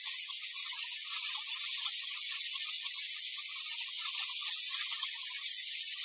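Bat calls: a dense, high-pitched hissing crackle of rapid tiny clicks, steady in level.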